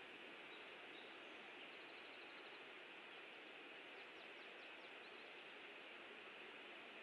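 Steady faint hiss of an outdoor nest-cam microphone. Faint distant bird calls come through it: a quick run of short chirps about two seconds in, and a few short falling notes between about four and five seconds.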